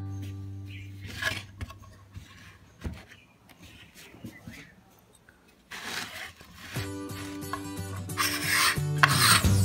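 Sandpaper rubbing over a wooden board in a few short scraping strokes, loudest near the end. A couple of light knocks come in a quieter stretch in the middle.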